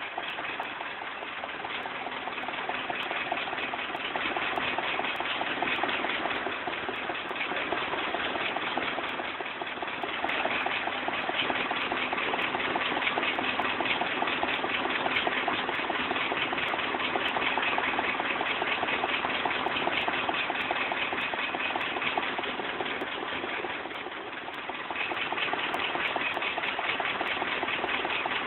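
Claas Senator combine harvester running steadily with its unloading auger turning as grain pours from the spout into a trailer. The level dips briefly near the end.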